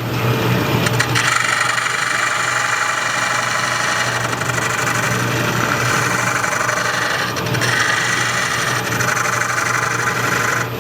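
Wood lathe running with a steady hum while a parting tool cuts into the spinning green-wood bowl blank, squaring the corner of the tenon for the chuck. The cutting noise starts about a second in and eases off briefly twice in the second half.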